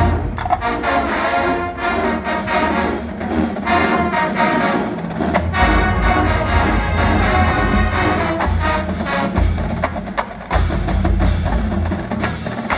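Marching band playing with its battery and front-ensemble percussion, including wood-block strikes, over brass and bass.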